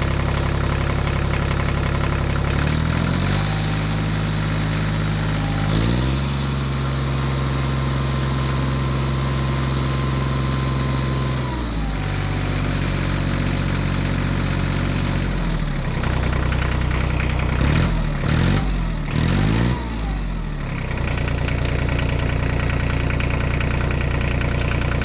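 Diesel tractor engine running, its pitch rising and falling as it is revved: up about three seconds in and again near six, down near twelve, then several quick rises and falls in the middle of the second half.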